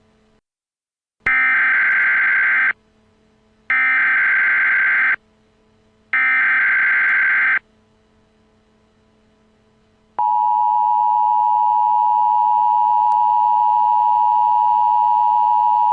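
Emergency Alert System alert tones: three short bursts of SAME header data, each about a second and a half long, then the steady two-tone EAS attention signal starting about ten seconds in.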